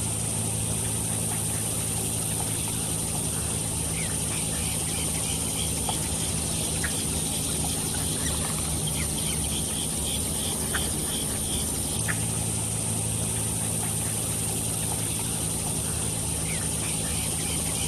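Young farm birds peeping softly in short repeated chirps, over a steady hum and hiss.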